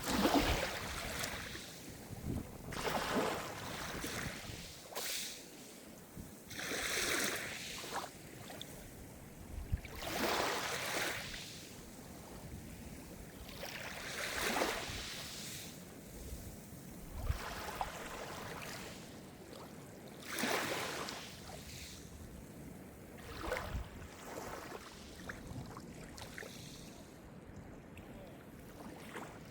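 Small Mediterranean waves breaking and washing on the shore: a hissing wash that swells and fades every few seconds.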